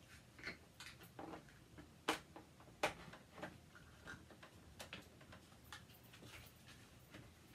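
Hard plastic dollhouse parts clicking and tapping together as castle rooftop pieces are handled and fitted. The clicks are faint and irregular, with two louder ones about two and three seconds in.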